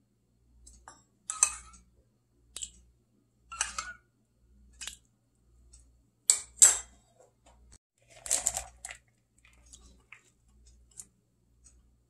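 Kitchen handling sounds: a stainless measuring cup, a wooden spoon and an earthenware ttukbaegi pot clink, tap and scrape in about a dozen short knocks. The loudest are a pair of clatters a little past halfway, followed by a longer scrape.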